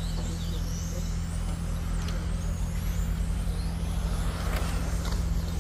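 Radio-controlled racing cars lapping a track, their motors whining up and down in pitch as they speed past, over a steady low rumble.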